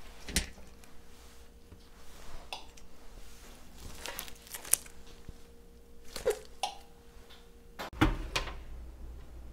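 Kitchen handling sounds from baking: a string of light clicks, knocks and crinkles from utensils and food being handled, with a faint steady hum that cuts off just before the loudest knock, about eight seconds in.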